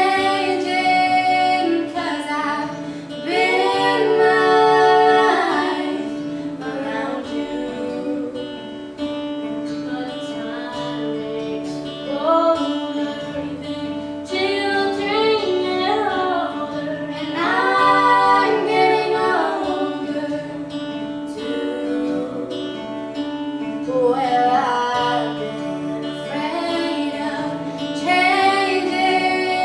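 A song: a woman singing over plucked guitar, with a held sustained note underneath.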